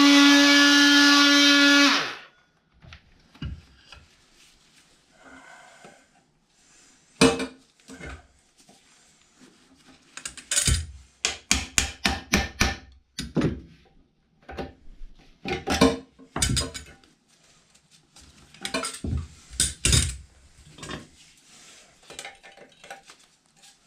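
A power tool cutting into the old toilet part, a loud steady whine that steps up slightly in pitch and stops about two seconds in. It is followed by a run of sharp metal knocks, clinks and rattles as the cut-free old part is worked loose.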